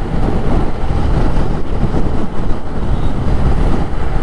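Wind rushing and buffeting over the mic on a moving motorcycle, with engine and road noise rumbling underneath.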